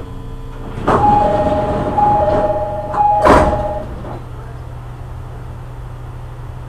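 Train door-closing chime: a two-tone ding-dong sounding three times, with bursts of noise from the E501 commuter car's sliding doors about a second in and a louder one as they shut a little after three seconds. A steady low hum from the standing train runs underneath.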